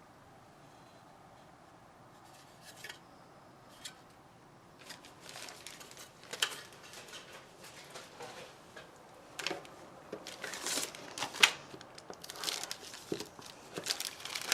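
Plastic bag of model kit parts crinkling and rustling as it is handled. The first few seconds are nearly quiet with a few light clicks, then the crinkling starts and gets louder, with one sharp crackle a little past the middle.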